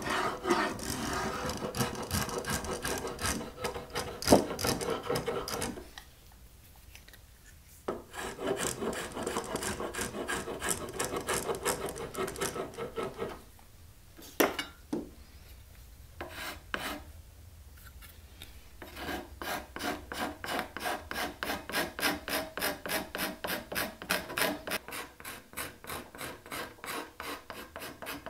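Hand tools shaping a Spanish cedar guitar neck: stretches of scraping strokes broken by two pauses with a few knocks, then from about two-thirds of the way in a steady run of file strokes, about two a second.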